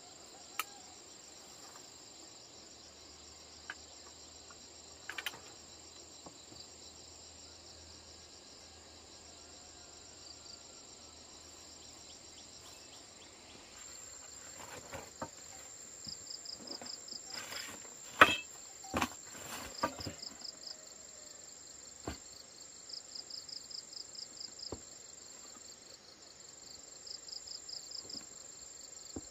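Insects such as crickets keep up a steady high buzz, joined in the second half by repeated trains of fast pulsed chirps. About halfway through comes a cluster of sharp knocks and taps, one much louder than the rest.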